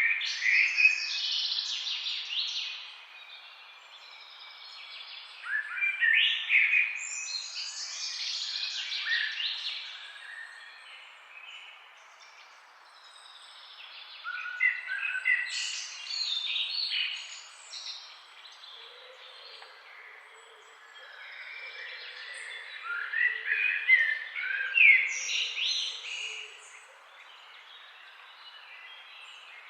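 Several songbirds singing and chirping in four bouts of a few seconds each, with quieter gaps between, over a steady hiss of a flowing forest river.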